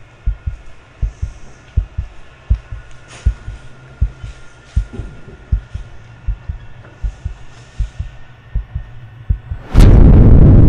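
Heartbeat sound effect on a film soundtrack: low double thuds, about one beat every three-quarters of a second, over a faint hum. Near the end a sudden, very loud burst of rumbling noise cuts in and holds.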